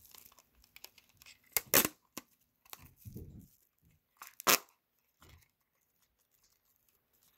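Clear sticky tape being pulled and torn from a dispenser roll, two short loud rasps about three seconds apart, with light handling rustle and a soft thump between them.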